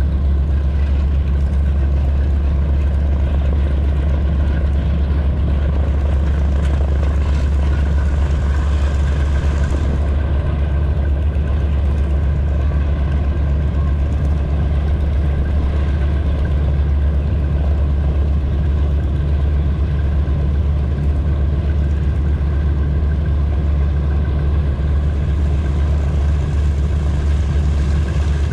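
Boeing B-17 Flying Fortress's Wright R-1820 Cyclone radial engines running steadily, a loud, even low drone with no change in pitch.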